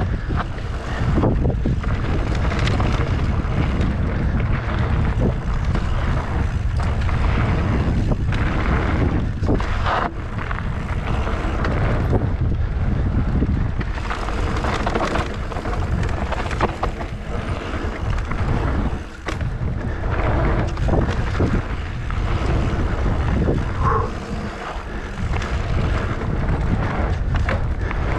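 Mountain bike ridden along a dirt trail: wind buffeting the microphone over the steady rumble of the tyres, with frequent knocks and rattles from the bike going over bumps.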